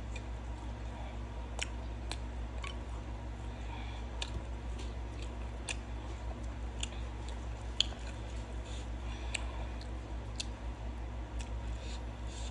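Close-up chewing of a bite of pizza: wet mouth clicks and smacks at irregular intervals, over a steady low hum.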